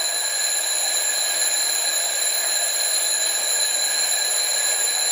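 About fifty twin-bell alarm clocks ringing all at once: a dense, steady, high-pitched clatter of bells.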